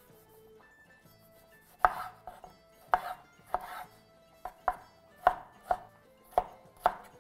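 Chef's knife dicing tomatoes on a wooden cutting board. About two seconds in, the blade starts knocking against the board, around ten sharp chops at roughly two a second.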